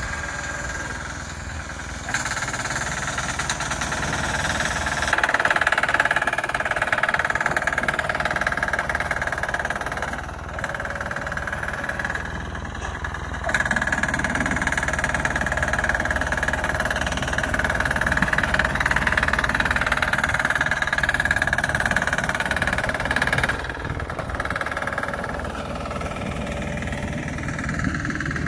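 Sears garden tractor's 6 hp single-cylinder air-cooled diesel engine running, growing louder and quieter in long stretches.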